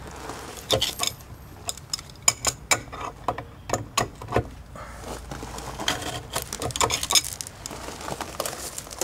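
Irregular metallic clinks and knocks as the outdoor gas meter's shutoff valve is worked to turn the gas back on.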